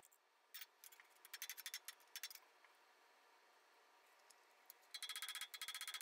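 A few faint metal clicks, then about five seconds in a light hammer starts tapping rapidly and evenly on a rivet end, peening a shallow head onto the steel back plate over the anvil, the metal ringing under the blows.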